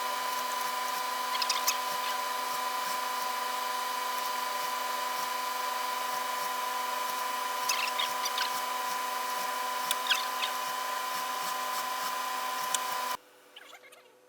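A steady electrical or motor hum with a few brief clicks of handling; the hum cuts off suddenly near the end, leaving only faint clicks.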